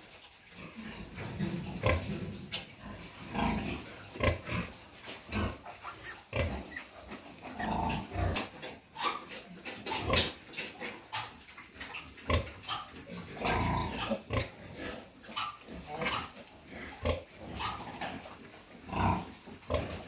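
Pigs, a farrowing sow and her newborn piglets, grunting in short, irregular calls, a few each second.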